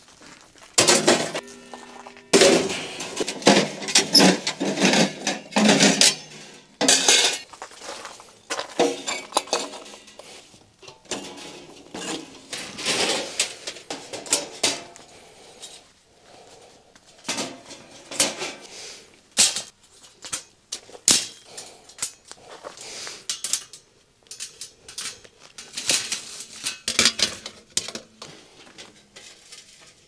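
Metal camp gear clanking and rattling as folding wire-mesh racks and sheet-metal pieces are lifted out of a bag and unfolded. The knocks are irregular, and some ring briefly, most of all in the first few seconds.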